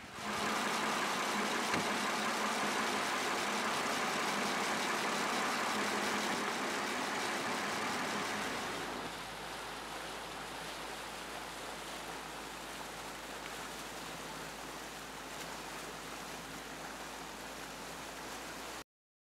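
Steady drone of a boat's engine running on the river, mixed with rushing noise. It drops in level about nine seconds in and cuts off sharply just before the end.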